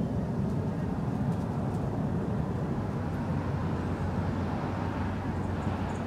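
Steady low rumble of distant road traffic.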